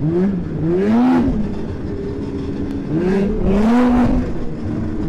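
Polaris XC SP 600 snowmobile's two-stroke twin engine under way, its pitch rising and falling back about three times as the throttle is squeezed and eased.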